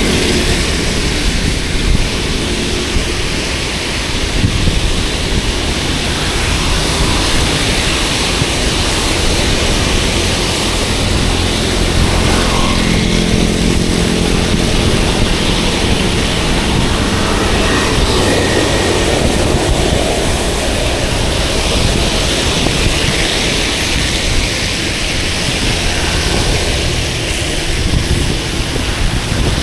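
Steady rushing of wind and wet road on an action camera's microphone while cycling in the rain, with a low hum joining for a few seconds around the middle.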